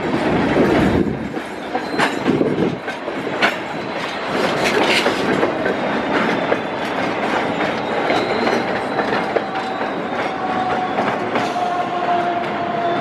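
CN freight train's open-top cars rolling past on the rails: a steady rumble with irregular clicks and clunks of wheels over rail joints. Thin wheel squeals sound now and then, the clearest near the end.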